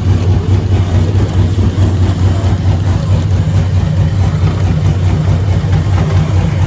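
Vehicle engine idling steadily, a constant low hum with no revving.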